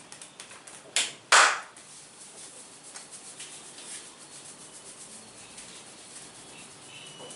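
A masseur's hands striking twice in quick succession about a second in, the second strike louder and a little longer. After that comes a faint, fast rustle of fingers working through oiled hair and scalp.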